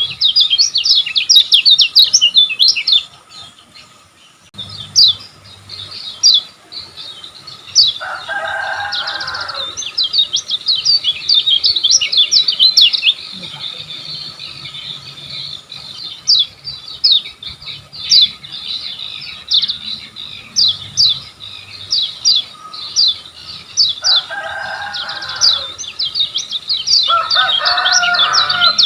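Kecial kuning (a white-eye) singing a fast, rapid-fire chirping song of quick sweeping notes, with a short pause a few seconds in. Three times a shorter, lower and fuller call breaks in.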